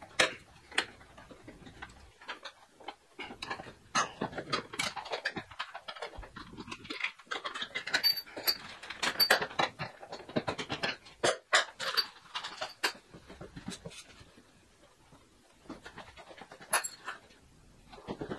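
Wrench and steel bolts being fitted to a motorcycle luggage rack: irregular clicks and light metallic clinks, some ringing briefly, with a quieter stretch near the end.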